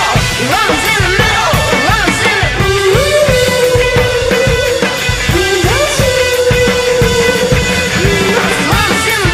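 Background rock music with a steady drum beat and a guitar; a lead line holds one long, slightly wavering note from about three seconds in until near the end.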